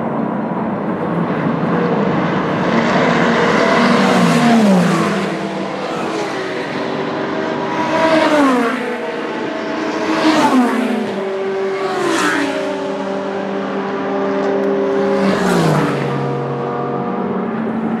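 Endurance race cars passing at speed one after another, about five loud fly-bys. Each engine note drops sharply in pitch as the car goes by, over the steady engine sound of other cars on the circuit.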